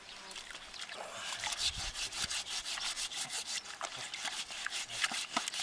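Scouring pad scrubbing the wet, blowtorch-singed skin of a marmot carcass, scraping off the burnt fur and char. Quick rhythmic scraping strokes, about four or five a second, begin about a second in.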